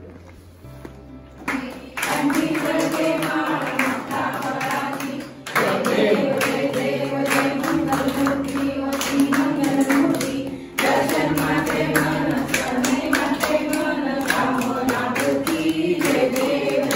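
A song with singing over a steady beat, coming in about two seconds in after a quieter start.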